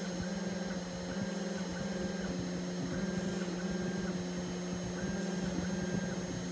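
500-watt spindle of a homemade Arduino CNC mill running steadily while its engraving bit mills traces into a copper-clad PCB board: a steady hum, with a fainter higher whine that starts and stops every half second or so as the axes move.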